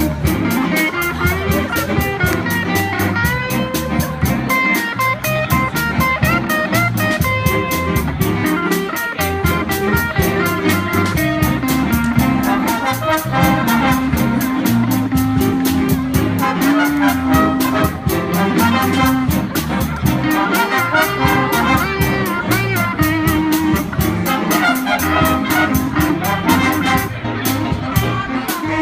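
Jazz band playing a tune, with brass and guitar over a steady beat.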